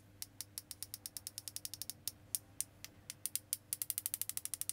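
Light, sharp clicks of a fan paintbrush being tapped against another brush's handle to splatter paint, in uneven runs that quicken to about eight taps a second in the second half.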